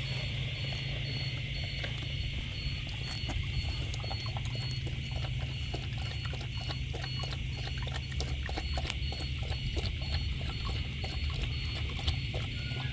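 Giant Schnauzer puppy lapping water from a stainless steel bowl: a quick run of wet clicks and splashes, thickest through the middle, over a steady low hum.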